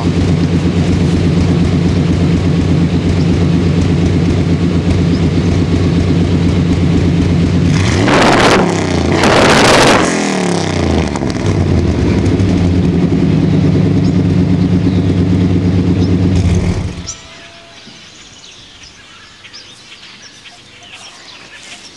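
1992 GMC Z71 pickup's engine idling steadily through its exhaust, revved twice about eight to ten seconds in, then back to idle. It is switched off about seventeen seconds in.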